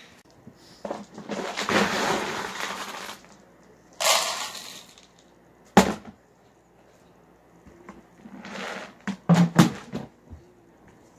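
Handling noises from a large plastic bin: bursts of rustling and scraping, a sharp knock about six seconds in, and a few thumps near the end.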